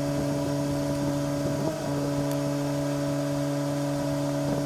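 A steady machine hum at one constant pitch, with a brief dip about two seconds in and another near the end.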